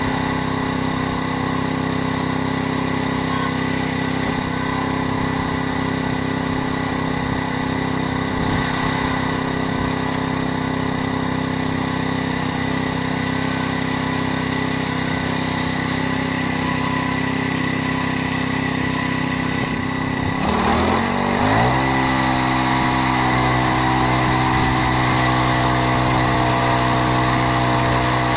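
Petrol engine of a Frontier (Norwood) portable bandsaw mill running steadily as the band blade saws through a green ironbark log. About 20 seconds in, the engine pitch dips and climbs again, then settles at a steady, higher pitch.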